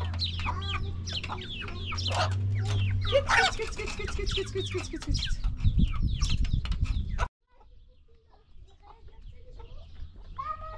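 Domestic hens clucking and calling as they peck at feed, with sharp taps from their beaks on a metal tray and a steady low hum underneath. The sound cuts off abruptly about seven seconds in, leaving a much quieter outdoor background with faint calls.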